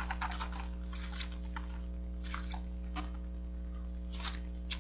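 Scattered short rustles and taps from handling things while fetching a sheet of paper, over a steady electrical hum.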